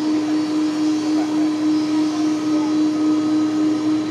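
Airbus A330's Pratt & Whitney PW4164 jet engines running at taxi power: a steady hum with one constant low tone and a thin high whine above it.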